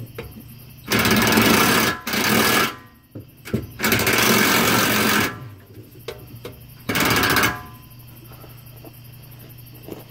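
Impact wrench hammering in four short bursts, the second-longest burst in the middle, as it runs nuts tight on a newly fitted exhaust muffler.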